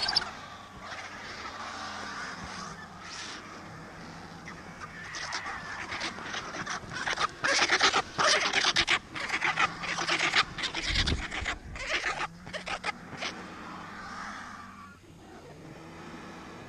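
Vultures squabbling at a carcass, making harsh, rasping calls. The calls build into a dense run of rapid bursts from about five to thirteen seconds in, with a low thump about eleven seconds in.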